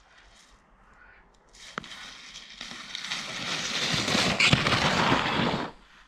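Small sled sliding down a packed-snow slope, a crackling scrape of snow under its base that grows louder over a few seconds as it comes closer, then stops abruptly near the end. A single knock about two seconds in.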